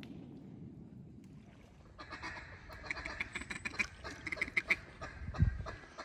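Duck quacking: runs of quick, clipped quacks starting about two seconds in, with a single low thump near the end.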